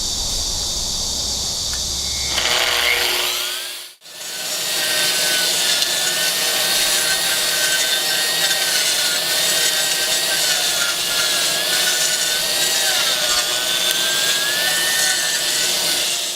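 AGP SM5 2200 W concrete grinder on its floor trolley starting up and grinding concrete: a whine rises in pitch about three seconds in, the sound breaks off for an instant at about four seconds, then a steady loud grinding noise with a wavering high whine runs on.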